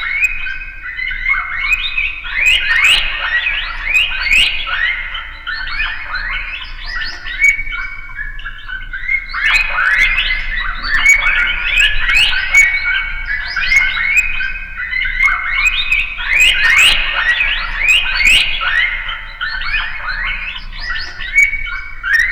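Many rats squeaking and squealing together, a dense, continuous chorus of short, high, overlapping squeaks that slide in pitch, with sharp clicks scattered through.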